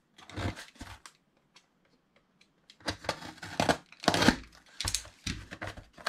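Parcel packaging being torn open and crinkled by hand: a few short tearing and rustling bursts, a pause of about two seconds, then a longer, louder run of rustling and tearing.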